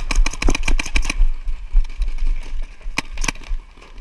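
Paintball markers firing a fast string of sharp pops through the first second, then a couple more shots about three seconds in, over a steady low rumble.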